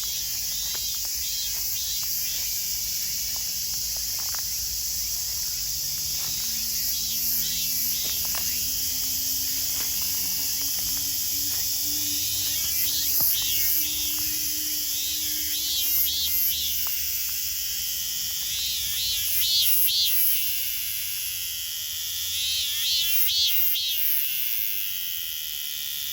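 Robust cicada (minminzemi) singing its repeated pulsing 'meen-meen' phrase, with phrases coming every few seconds and growing louder in the second half, over a steady high buzzing of a cicada chorus.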